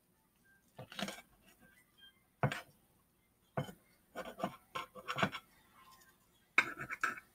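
Knife sawing through a toasted sandwich: short, irregular crunching strokes through the toast, bunched together about four to five seconds in and again near the end.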